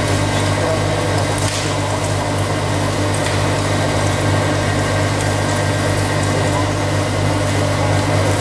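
Heavy face milling on a FERMAT WRF 160 Heavy CNC horizontal boring mill: a 200 mm, 45° face mill turning at 250 rpm cuts 7 mm deep across a 160 mm width of a metal block. A steady cutting noise over a constant low machine hum, with scattered ticks of flying chips.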